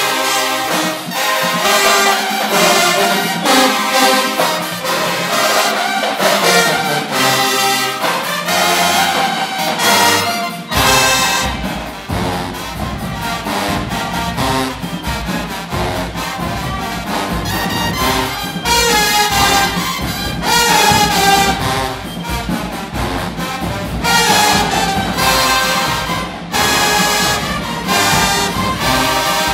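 College marching band playing a loud, brass-heavy tune: sousaphones and trumpets with clarinets. About eleven seconds in, a deep bass part comes in and the sound gets fuller.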